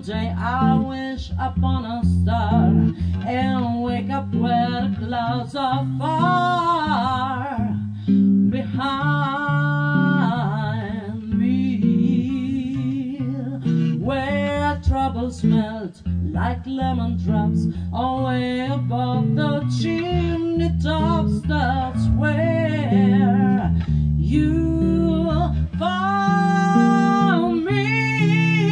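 A song: a singing voice with vibrato over plucked guitar accompaniment.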